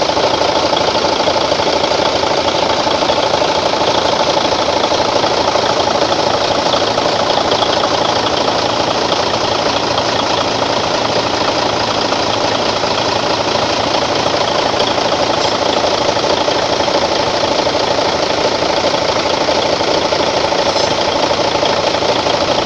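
Mercedes-Benz Actros truck diesel engine running steadily, freshly overhauled, with no change in speed.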